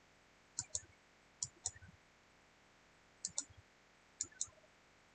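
Computer mouse button clicking four times, each click heard as a quick pair of sharp ticks a fraction of a second apart.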